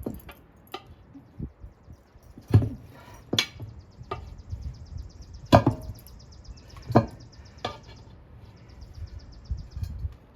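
A tire being forced onto its rim by hand and foot: about five sharp knocks and thumps spread across several seconds, with a faint fast ticking in between.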